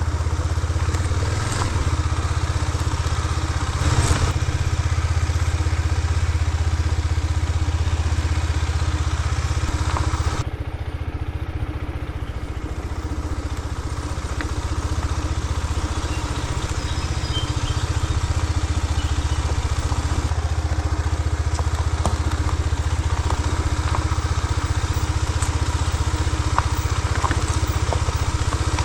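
TNT 250 motorcycle engine running steadily while riding, easing off about ten seconds in and building back up over the following seconds.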